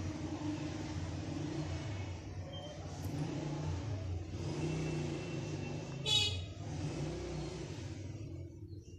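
Steady low rumble of background road traffic, with a short high-pitched tone about six seconds in.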